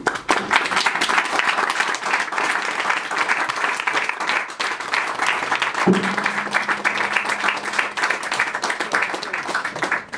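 Audience applause, a dense patter of clapping hands, stops abruptly near the end. About six seconds in, a low string of the acoustic guitar rings out once with a sharp start and holds for a few seconds.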